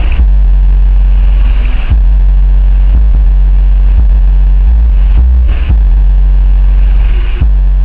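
Car sound system with four Bravox UXP subwoofers playing bass-heavy music at very high volume. Deep bass notes are held and shift every second or two, with little heard above them.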